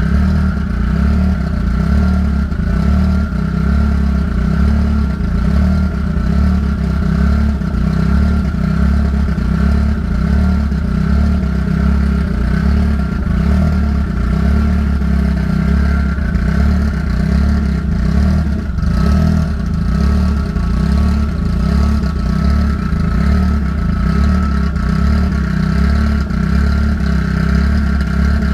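Car engine idling steadily, run to burp trapped air out of a freshly refilled cooling system.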